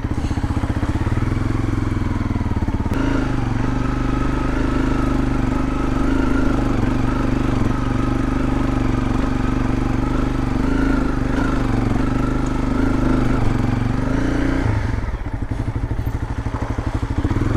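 Honda CRF250L single-cylinder dirt bike engine running under way at fairly steady revs, stepping up about three seconds in and easing back near the end.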